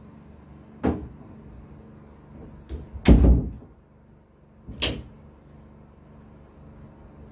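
An interior door being handled. There is a sharp click about a second in, then a heavy thud about three seconds in, the loudest sound, as the door shuts. Another sharp knock comes just before five seconds.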